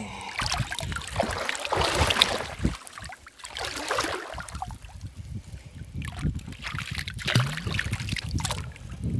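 Water splashing and streaming as an anchor chain is hauled up hand over hand out of the river, in several surges, with a small Bruce anchor breaking the surface in a splash near the end.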